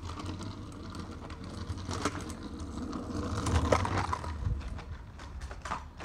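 Kick scooter wheels rolling over asphalt, a low rumble that grows louder to a peak a little past halfway and then fades, with scattered clicks and knocks.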